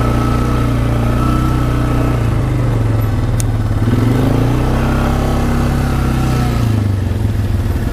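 Small off-road vehicle engine running at low, slightly varying speed while it is ridden slowly along a dirt track.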